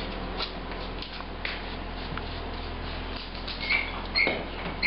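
Brass halter fittings on a horse clinking three short times near the end as it moves its head, with small scattered clicks, over a steady low hum.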